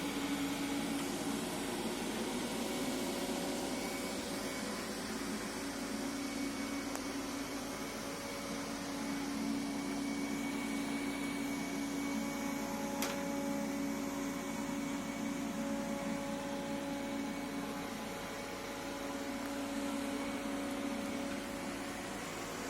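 Easy Home robotic vacuum cleaner running: a steady motor whir with a low hum and faint higher whines, and a single sharp click partway through.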